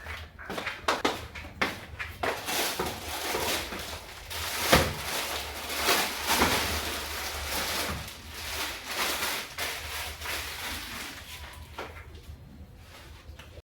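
Packaging rustling and crinkling, with irregular knocks and clicks, as food items are handled and unpacked.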